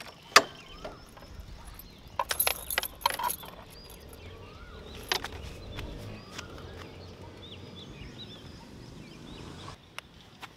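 Outdoor ambience: birds chirping on and off over a low, steady rumble, with a few sharp clicks and rattles, the loudest cluster about two to three seconds in.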